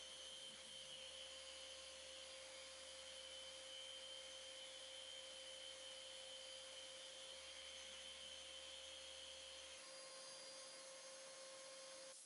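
Near silence: a faint, steady electronic hum with a thin high tone. The high tone and the lowest hum drop out about ten seconds in. No sanding is heard.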